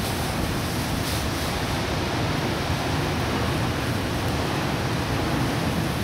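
Strong wind blowing, a steady rushing noise with a heavy low rumble of the wind buffeting the microphone.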